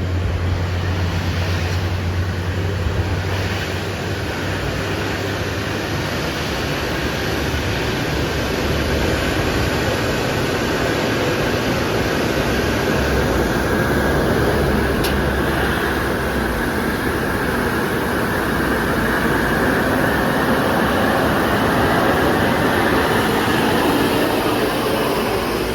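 Truck engine running hard with steady road noise, as on a long uphill climb; a low drone sits under it for about the first sixteen seconds, then fades as a broader hiss builds.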